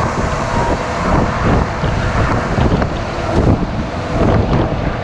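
A truck driving at road speed, heard from inside the cab: steady engine and road noise with wind buffeting the microphone.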